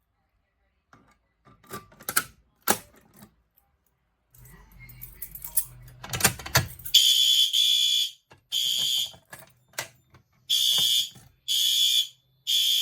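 Fire alarm horns sounding in bursts, short high-pitched blasts in groups of three with a pause between groups, starting about seven seconds in, as devices are tested during a walk test. Before them come scattered clicks and knocks, then a low hum with a rattle for a couple of seconds.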